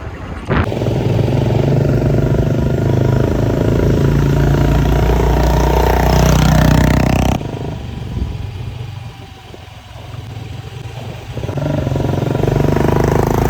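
Royal Enfield Bullet 350's single-cylinder engine with a modified exhaust, running under acceleration while being ridden. The engine sound drops off sharply about seven seconds in and builds back up near the end.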